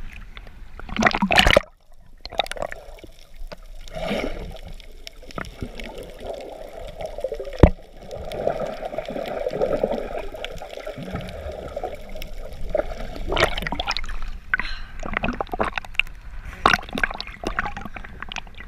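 Seawater splashing and sloshing against a camera at the surface, then a muffled underwater stretch for several seconds as it goes under. A single sharp knock comes about eight seconds in, and the splashing returns as it comes back up near the end.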